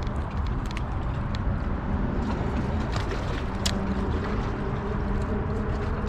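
Steady low outdoor rumble by the river, with a faint motor hum in the middle stretch and a few sharp light ticks scattered through.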